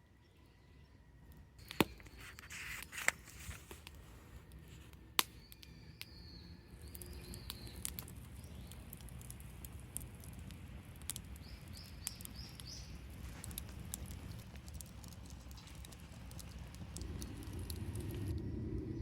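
Quiet outdoor ambience with three sharp clicks in the first few seconds and faint short bird chirps, including a quick run of chirps about two thirds of the way through.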